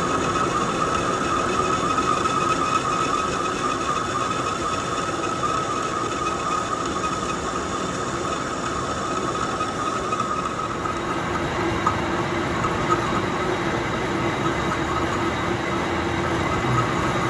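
Workshop machinery running steadily, with a constant high whine over a lower hum. The whine eases about ten seconds in.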